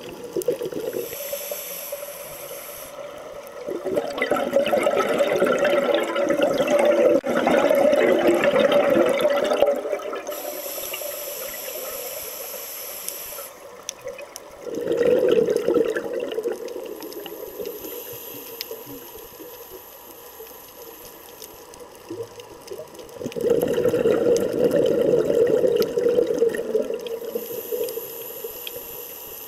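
Scuba diver breathing underwater through a regulator: three long bursts of exhaled bubbles, several seconds apart, with quieter stretches between them carrying a thin high hiss.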